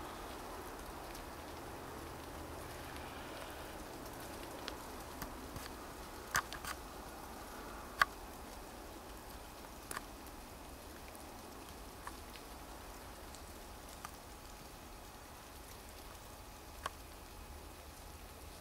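Steady soft pattering of wet snow and drips falling through leafy, snow-laden woods, with a handful of sharp single ticks scattered through it, the loudest about eight seconds in.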